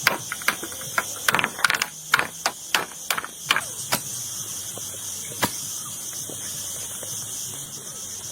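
A quick, irregular run of sharp knocks, two or three a second, that stops about four seconds in, with one more knock a little later; a steady high hiss runs underneath.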